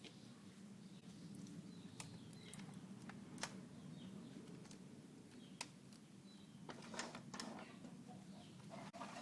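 Quiet background with a faint steady hum, a few sharp light clicks, and faint bird chirps in the distance.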